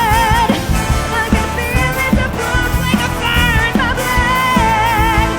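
A female singer belting long held notes with a wide vibrato over a live pop-rock band with drums.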